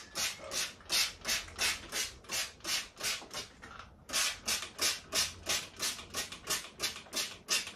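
Hand-held trigger spray bottle squeezed rapidly, about three sprays a second, each a short hiss of mist onto a plant's leaves, with a brief pause about three and a half seconds in.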